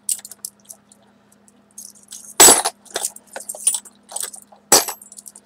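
Small old metal keys clinking against each other as they are sorted through by hand: a scatter of light clinks, with two louder ones about two and a half seconds in and near the end.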